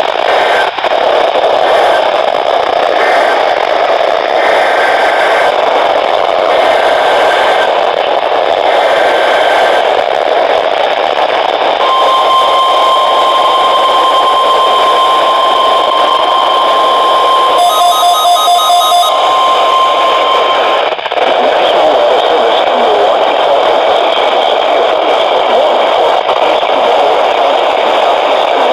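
Weather radio receiver hissing with heavy static. Faint short beeps come through in the first few seconds. Later a steady, high, single-pitch warning alarm tone sounds for about nine seconds, with a brief burst of rapid chirping pulses near its end, then the static continues alone.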